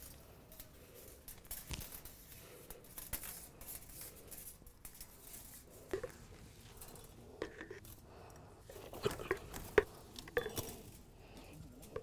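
Galvanized steel wire clicking and scraping against hexagonal gabion wire mesh as gloved hands feed it down through the corner of the baskets. Faint rustling, with a run of sharper metallic clicks in the second half.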